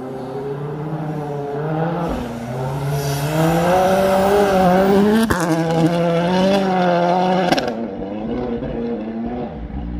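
M-Sport Ford Fiesta WRC rally car driven flat out on snow, its turbocharged four-cylinder engine revving hard, the pitch climbing and dropping back with each gear change. A single sharp crack comes about five seconds in. The engine is loudest as the car goes by and then falls away.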